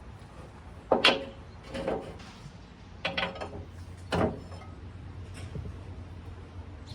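Metal clanks and knocks, four of them about a second apart, each with a short ringing note, as the replacement hydraulic lift cylinder of a Bobcat 7753 skid steer is worked into place. A steady low hum runs underneath.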